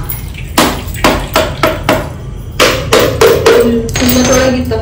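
A quick, irregular series of about ten sharp strikes, in clusters, each ringing briefly. A held tone comes in near the end.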